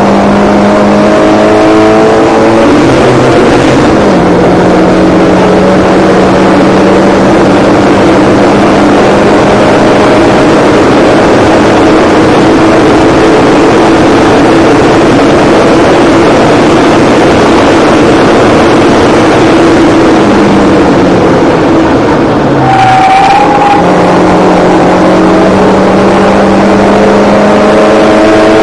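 Mazda MX-5 race car's four-cylinder engine heard from inside the cockpit, running hard at high revs with road and wind noise. The pitch steps down about four seconds in, breaks off briefly about twenty-three seconds in, and climbs again near the end.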